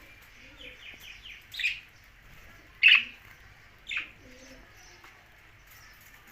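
Budgerigars chirping: a short buzzy chatter, then three sharp chirps about a second apart, the middle one loudest.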